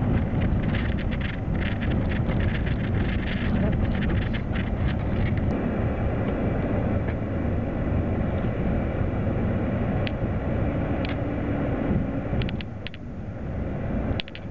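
Vehicle driving over a rough dirt road, heard from inside the cab: steady engine and tyre noise, with dense rattling and clicking for the first five seconds or so, then only occasional clicks. It gets quieter near the end.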